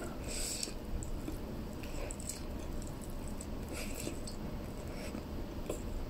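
Low steady room hum with a few faint, brief soft noises, about three of them.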